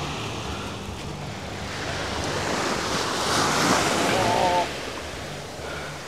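Surf breaking on a pebble beach: the wash swells up about two seconds in and falls away sharply near the five-second mark.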